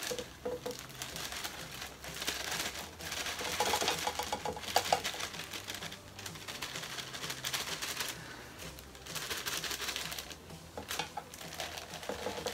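Tarantula substrate pouring from a plastic bag into a small plastic enclosure, the bag crinkling as it is shaken out: a continuous dense patter of fine rapid ticks.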